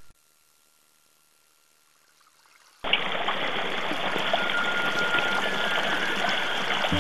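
Near silence for almost three seconds, then the sound of a running stream starts suddenly and goes on steadily.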